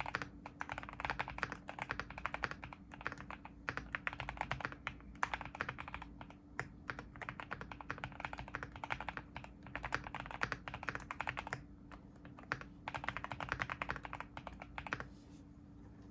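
Typing on a custom Mod 007V2 mechanical keyboard with lubed Boba LT linear switches on a polycarbonate plate, fully foamed: fast runs of keystrokes in bursts with short pauses, each run ending in a deep, poppy spacebar press. The typing stops about a second before the end.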